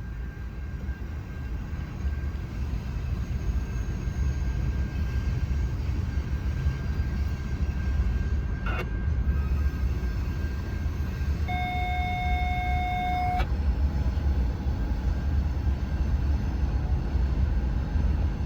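Norfolk Southern freight train rolling past with a steady low rumble. About two-thirds of the way in, a brief steady tone sounds for about two seconds.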